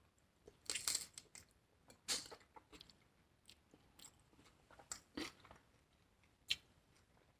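Close-up mouth sounds of biting into and chewing a crisp lettuce-wrapped taco: irregular wet crunches and crackles, loudest about a second in, at two seconds, and around five seconds, with one sharp crunch near the end.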